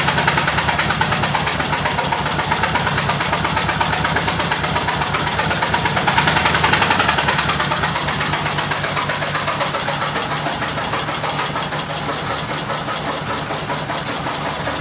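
Volkswagen Beetle's air-cooled flat-four engine running with a loud, rapid clatter, a little louder about six seconds in. It is an abnormal noise that the owner likens to the engine knocking.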